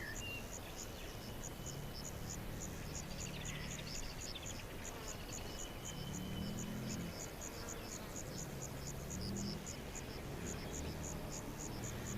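Crickets chirping in a steady, even rhythm of about four chirps a second, with a few faint bird calls and a low hum underneath.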